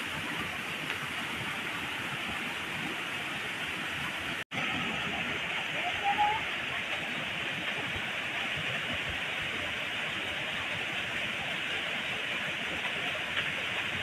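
Waterfall pouring over rock into a pool, a steady rushing hiss. The sound drops out for an instant about four and a half seconds in, where the recording is cut, and a brief high squeak rises above the water about six seconds in.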